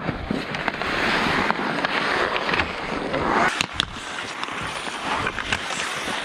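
Ice hockey skates carving and scraping across the ice in swelling rasps, with a few sharp clacks of sticks and puck, most of them around the middle.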